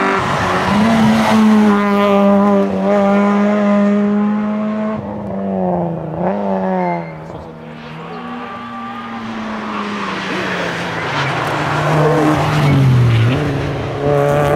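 Rally cars' engines at high revs, a Citroën Saxo among them, the pitch climbing and dropping through gear changes. Quick up-and-down throttle blips come on the downshifts about five to seven seconds in. The sound jumps abruptly from one car to the next a few times.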